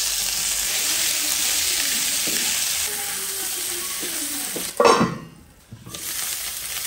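Potato wedges sizzling as they fry in hot oil in a kadai, stirred with a metal spatula. About five seconds in there is a loud clank, the sizzle nearly drops away for about a second, then comes back quieter.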